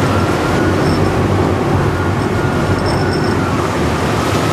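Pilot boat's engine running steadily under a constant wash of wind and rough sea.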